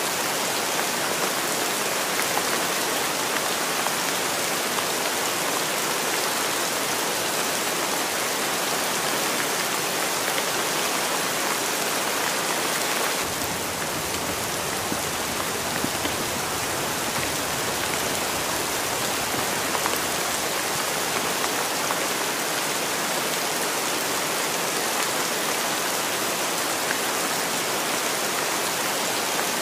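Steady rain falling, a dense even hiss, with a little more low rumble for several seconds about halfway through.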